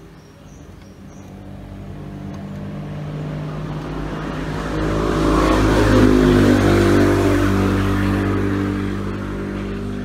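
A motor vehicle's engine going past, swelling over about five seconds to its loudest around the middle and then fading away.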